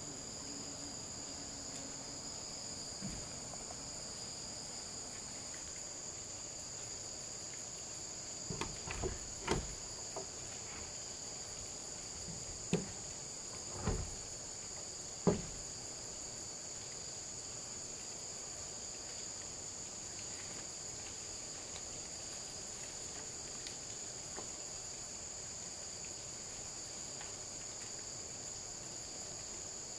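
A steady high insect chorus, like crickets, runs throughout. Around the middle come a handful of short knocks, about seven in eight seconds.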